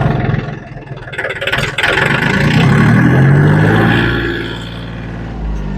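John Deere 870 compact tractor's three-cylinder diesel engine running under load as the loader pushes gravel, revving up about two seconds in and easing back down near the end.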